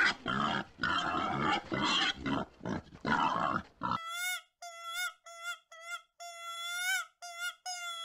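Wild boar grunting in a quick run of rough, noisy bursts, then a series of about nine short, clear, high squeaky calls, one of them longer.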